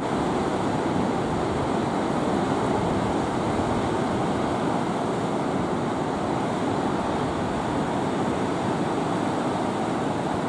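Steady rush of ocean surf breaking, with wind on the microphone.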